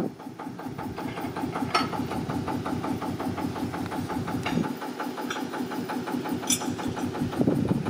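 An engine idling with a steady, fast, even beat, with a couple of short sharp clicks over it.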